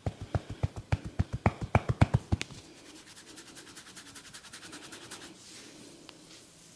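A barber's hands drumming quickly on a head during a massage: a run of dull thumps at about six a second, then a faster, lighter patter of clicks that stops about five seconds in.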